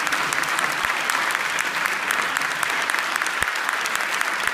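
Audience applauding steadily at the end of a string trio performance, a dense even patter of many hands clapping.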